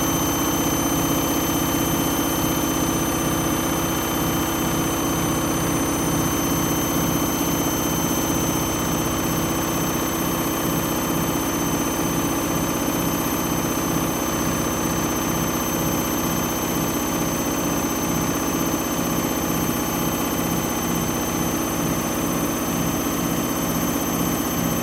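Candy Grand'O Vita 7 kg washing machine spinning at high speed, a loud steady drone of the drum with a fast, even rumble beneath it: the drum bearings are on the way out.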